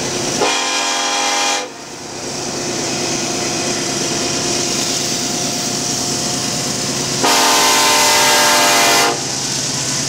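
CN freight train's diesel locomotives passing close with a steady rumble, the lead locomotive's multi-tone air horn sounding twice: a short blast about half a second in and a longer blast of about two seconds near the end.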